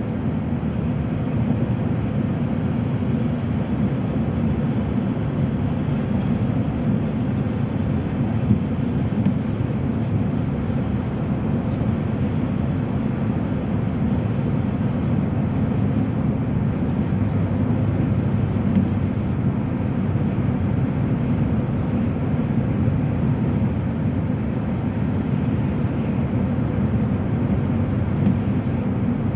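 Steady in-cabin drone of a car driving at road speed: engine and tyre noise on the road, even and unbroken.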